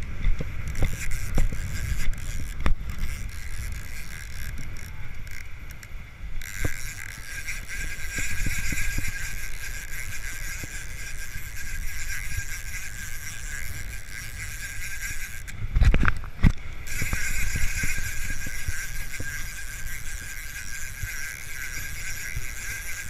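Shimano TLD 15 lever-drag reel whirring steadily under the load of a hooked spinner shark, starting about six seconds in. Wind buffets the microphone throughout, and there is a loud bump near sixteen seconds.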